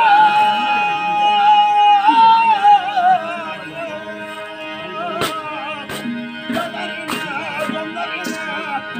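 Therukoothu stage song: a singer holds a long high note, then moves into a wavering melodic line over a steady drone. From about halfway through, sharp percussion strikes come in at irregular intervals.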